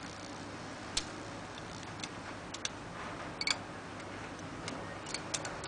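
Light metallic clicks and taps, scattered irregularly, from a lever-lifter pick wire being handled and worked in a vintage lever padlock.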